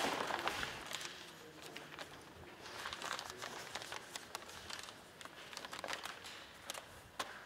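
Paper crinkling and rustling as it is handled and folded, with irregular small crackles.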